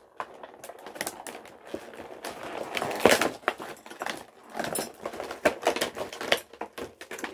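Stiff plastic toy packaging crinkling and crackling in irregular clicks as a doll in a clear plastic tray is worked out of its pink outer shell.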